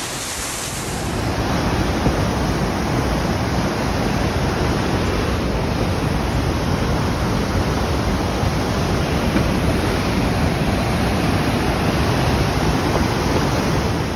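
Fast, swollen mountain river rushing over boulders: a steady, loud wash of white water with no break.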